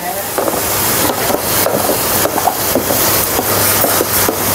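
Food frying in a hot pan: a steady sizzle with irregular pops and crackles.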